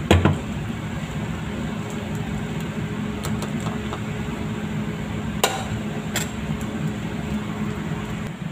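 Air fryer basket pulled out and coming free with a hard plastic clunk at the start, followed by a steady mechanical hum with two short clicks a few seconds later.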